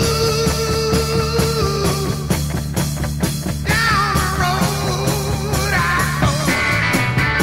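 Rock music with a steady beat and a lead line that bends in pitch.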